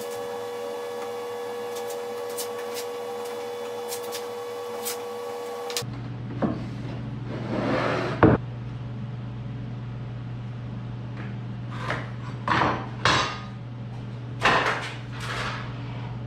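Knocks and short scrapes of plywood cabinet parts being handled and tapped, over a steady low hum. For about the first six seconds only a steady humming tone with a few faint ticks is heard, then it changes abruptly to the lower hum with the knocks.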